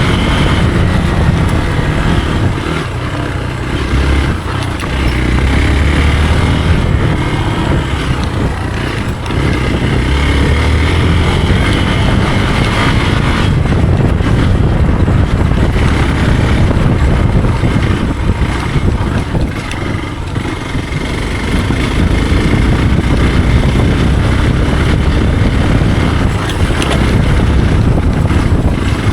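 Hero Xpulse single-cylinder motorcycle engine running as the bike is ridden, the throttle easing off and opening up again every several seconds.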